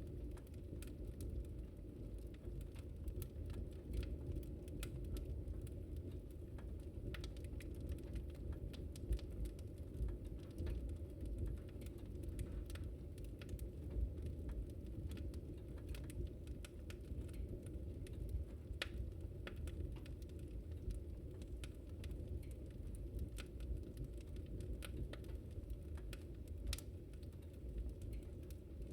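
Campfire burning: a steady low rumble of flames with frequent irregular crackles and pops of burning wood.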